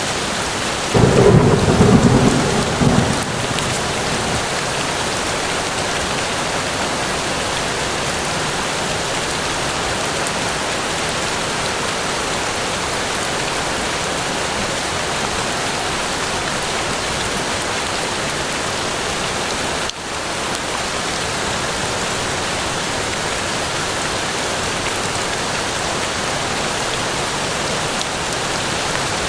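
Steady, heavy rain falling in a forest, with a short, loud rumble of thunder about a second in that dies away within two seconds.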